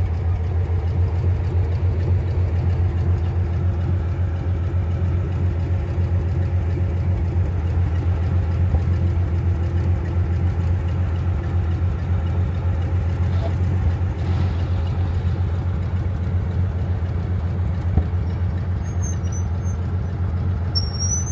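Old forklift's engine running steadily, a low even drone. A few short high chirps come in near the end.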